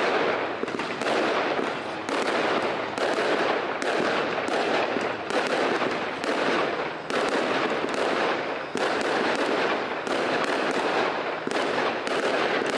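Fireworks display: aerial shells bursting in quick succession, about one or two sharp bangs a second over a dense, continuous crackling.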